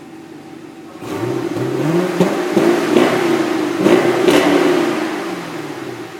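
Chevrolet Camaro 6.2-litre V8 exhaust revving. It runs low and steady, climbs in pitch about a second in, stays high with several sharp cracks, then winds back down near the end.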